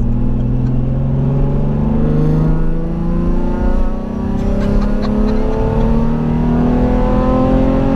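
Supercharged Nissan 350Z accelerating, its engine note climbing slowly and steadily in pitch through a long pull, with a brief dip in loudness about four seconds in.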